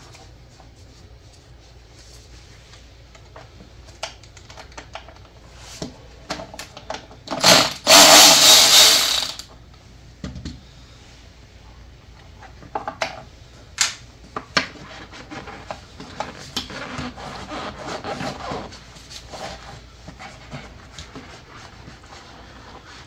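Cordless ratchet running for about two seconds near the middle, in two quick spurts, loosening 10 mm bolts. Around it are scattered clicks and knocks of the tool and of plastic engine parts being handled.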